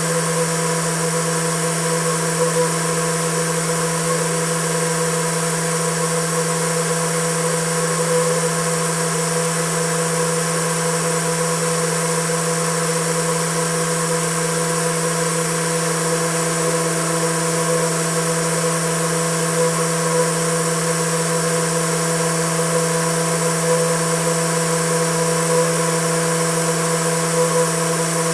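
Homemade Tesla turbine spinning steadily at just under 10,000 rpm on 15 psi: a constant hum at its rotation speed with higher overtones, over a steady high hiss.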